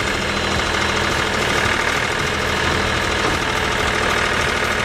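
Heavy diesel engine of an excavator running steadily, with a dense mechanical clatter over a low hum.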